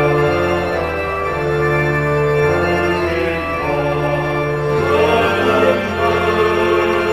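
Organ playing slow, sustained chords of a hymn accompaniment, an instrumental interlude between sung lines, with the chords changing about every second and the texture growing busier near the end.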